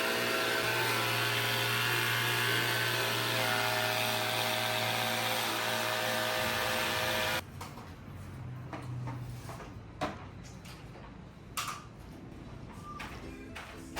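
A machine running steadily with a constant hum, which cuts off abruptly about seven seconds in. After that, quieter scattered clicks and knocks.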